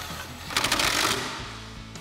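Cordless impact wrench hammering as it drives a 10 mm 12-point bolt tight through a swivel adapter, in one burst of rapid impacts lasting just under a second, starting about half a second in. Background music plays throughout.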